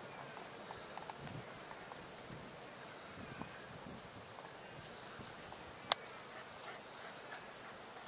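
High-pitched insect chirring that pulses steadily throughout, with one sharp click about six seconds in.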